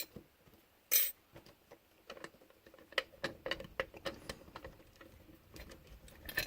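Light handling noises of small metal objects: scattered soft clicks and clinks, with one short louder rustle about a second in.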